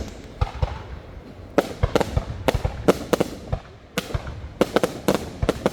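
Fireworks going off: a steady run of sharp bangs and cracks in irregular clusters, often several within a second, over a continuous low rumble of more distant bursts.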